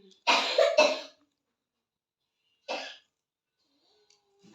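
A person coughing: a loud double cough a quarter second in, then a single shorter cough near the middle.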